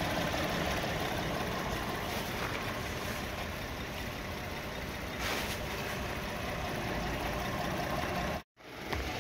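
The freshly repaired GDI engine of a 2014 Hyundai Santa Fe idling steadily after a bearing repair, running fine. The sound cuts out briefly near the end.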